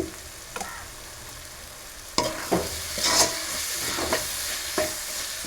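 Onion-tomato masala sizzling in oil in a pan, with a spatula stirring and scraping it in several short strokes from about two seconds in.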